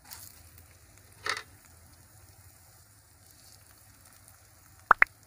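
A whole-wheat paratha sizzles in melting fat on a hot iron tawa while the fat is spread and the paratha is folded over, with a louder hiss about a second in. Two short, high chirps come near the end.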